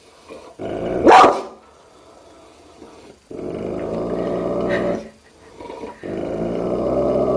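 Large mastiff-type dog vocalizing at its own reflection in a mirror: one sharp bark about a second in, then two long, low, drawn-out growls, the second starting about six seconds in.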